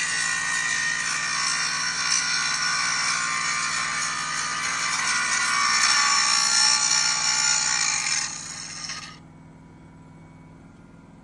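Angle grinder grinding steel on an excavator's arm, running steadily with a high whine, then winding down and stopping about eight to nine seconds in.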